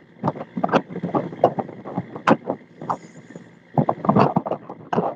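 Water splashing and slapping against the hull of a fishing boat under way through choppy sea, in irregular surges with a few sharp slaps.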